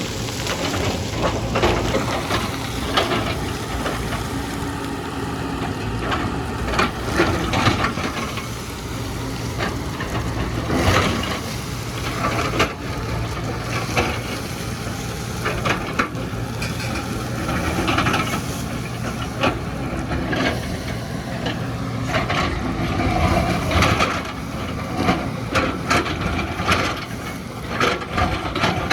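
Excavator's diesel engine running steadily while its bucket digs into the hillside, with frequent irregular knocks and crunches of earth and rock.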